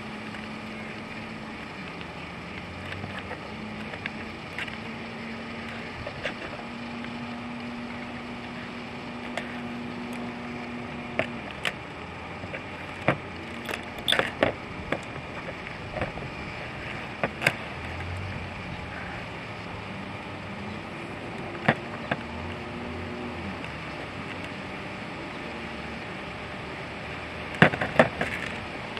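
Hard plastic and metal bite-indicator parts clicking and tapping against a plastic lid as they are handled and screwed together, with ball chain rattling, in scattered sharp clicks and a quick cluster near the end. A low steady hum runs underneath.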